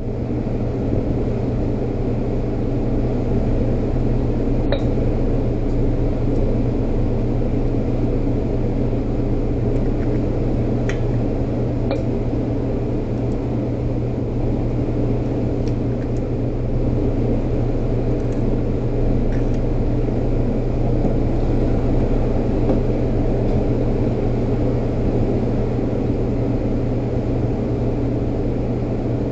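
Steady, loud mechanical hum with a low drone, such as running kitchen ventilation or appliances. A few faint clicks and clinks sit over it, about five seconds in and again around eleven and twelve seconds.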